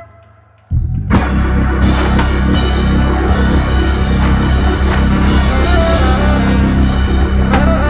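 Live organ-trio jazz on Hammond organ, tenor saxophone and drum kit. The band stops dead for a moment, then the organ bass line comes in and the whole band, cymbals and sax included, comes back in about a second in and plays on.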